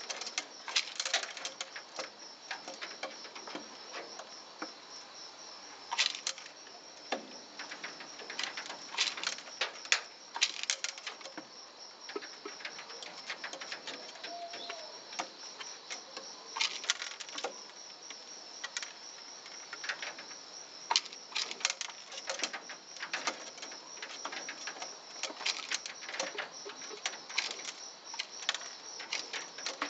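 A domestic pigeon pecking at mung beans and ground corn in a plastic feeder cup and on a wooden ledge: irregular sharp clicks and taps of its beak on seed and plastic. A steady high-pitched buzz runs underneath.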